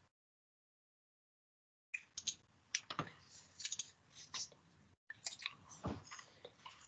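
Faint, irregular clicks and small rustling noises, starting about two seconds in after total silence.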